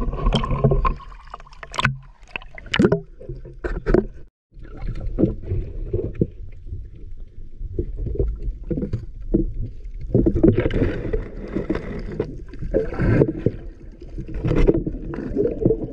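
Water sloshing and churning around a waterproof action camera that is partly under water, with irregular knocks and bubbling as the hunter wades and reaches along the bottom. The sound cuts out for a moment about four seconds in and grows busier in the second half.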